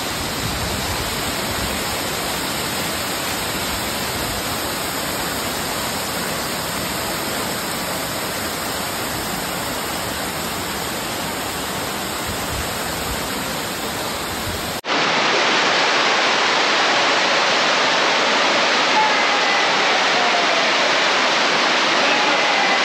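Steady rush of a mountain stream spilling over rocks in a small waterfall. About fifteen seconds in it cuts abruptly to a louder, brighter rush of water.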